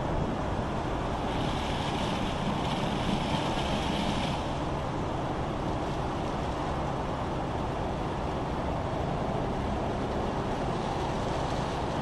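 Automatic drive-through bus wash running: rotating brushes scrubbing a bus with water spraying, over the steady low rumble of the bus. The spray hiss is louder from about one to four seconds in.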